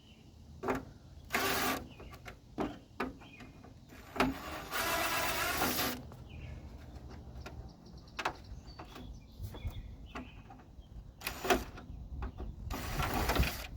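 Work on the truck's plastic front grille and its fastening screws: scattered clicks and knocks, with several short scraping or whirring bursts, the longest about four seconds in.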